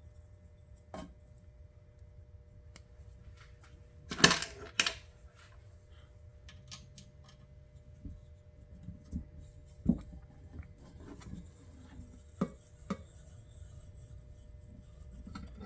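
Scattered small clicks and knocks of tools and parts being handled on a workbench as an electronic timer's case is worked open. The loudest is a quick pair of knocks about four seconds in, with a few lighter taps later.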